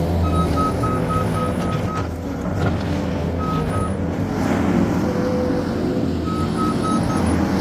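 New Holland C232 compact track loader's diesel engine running under work, with its backup alarm sounding in three runs of short beeps, about four a second, as the machine reverses.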